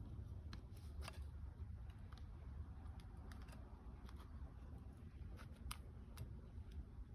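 Faint, scattered small clicks and scrapes of hands fitting parts on a dirt bike engine's stator cover, over a steady low rumble.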